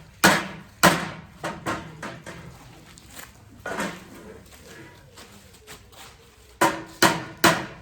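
Hammer striking nails: two hard blows in the first second, a few lighter taps, then three quick hard blows near the end.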